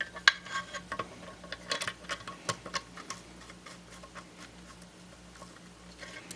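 Small metal clicks and taps of a connecting rod cap being fitted to the crankshaft of a 1958 Briggs & Stratton Model 6B engine, thick in the first three seconds and fewer after.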